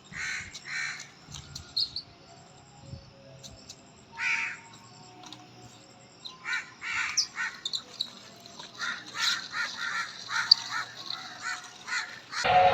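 Birds calling outdoors: a scatter of short calls, more frequent in the second half.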